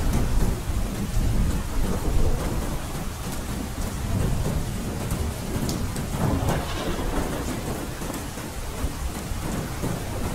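Steady rain falling, with scattered ticks of drops and a low rumble of thunder that is heaviest in the first couple of seconds and then eases.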